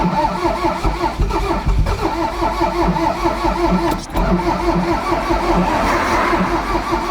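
Rod-knocking Toyota MR2 engine cranking over on its starter without catching, in a steady repeating rhythm with two brief breaks about two and four seconds in.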